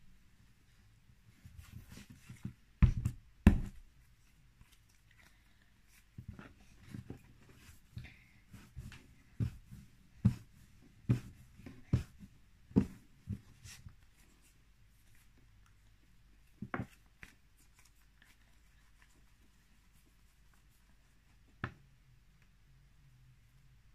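A run of irregular knocks and taps, some sharp and loud, over about the first fourteen seconds, then two more isolated taps later.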